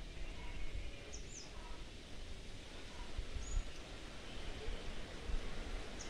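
Birds calling in the background: short high chirps, some doubled, about every two seconds, with fainter lower whistled notes, over a steady low rumble.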